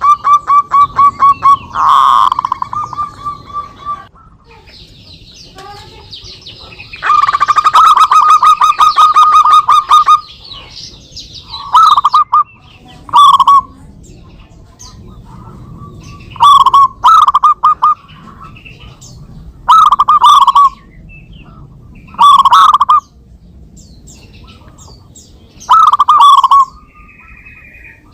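Zebra doves (perkutut) singing back and forth: long rapid trains of purring pulses, then short repeated coos every few seconds. A fainter, higher chirping comes in about four seconds in.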